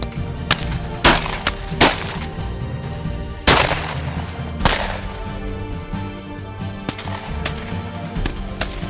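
Shotgun shots at driven partridges, about nine in a ragged string, some loud and close, others fainter, with background music underneath.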